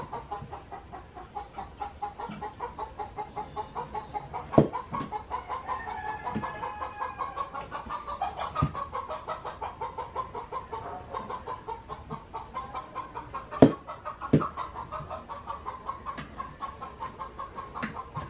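Chickens clucking in a quick, steady run of clucks, several a second, with a few sharp knocks from a knife cutting papaya, the loudest about 14 seconds in.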